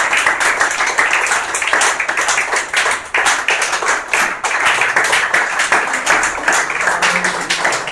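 A small audience applauding: dense, steady hand-clapping.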